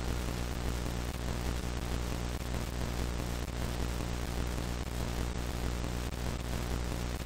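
Steady static hiss with a low electrical hum underneath, unchanging throughout.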